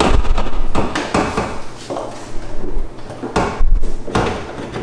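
Clunks and knocks of the Tesla Model 3's plastic cooling module and shroud as it is lifted and worked into its mounts, with a run of knocks and thuds at the start and another loud cluster of clunks about three and a half seconds in.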